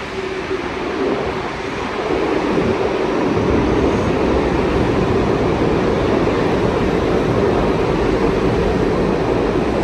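New York City subway train rumbling in the station: the rumble grows louder about three seconds in, then holds steady and loud.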